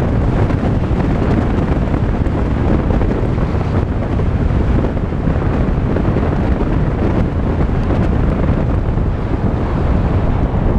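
Volkswagen Tiguan driving on a gravel dirt road: a steady, loud rumble of tyres and road noise, with wind buffeting the microphone.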